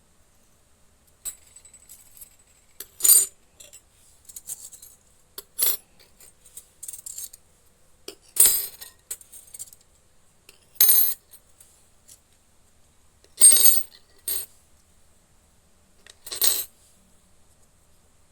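Small toy cooking-set pieces clinking sharply as they are set down or knocked together, about eight separate clinks a couple of seconds apart, with light handling sounds between them.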